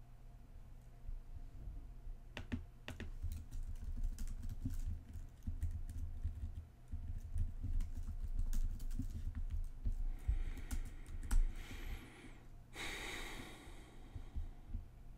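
Typing on a computer keyboard: irregular key clicks and taps, with a short rush of noise near the end.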